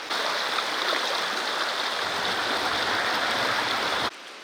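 Rushing river water: a loud, steady rush of flowing water that cuts off abruptly near the end.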